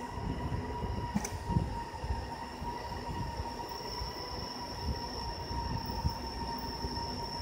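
FORSUN FS1630ATC CNC router running, its spindle head travelling along the gantry: a steady high whine made of several fixed tones over an uneven low rumble, with a sharp click about a second in.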